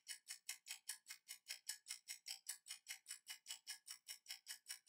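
Fast, even clock-like ticking, about seven short ticks a second, over an otherwise silent track: a ticking sound effect.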